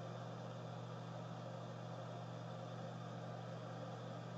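A steady low hum with a faint even hiss underneath, unchanging throughout: background noise of a small room.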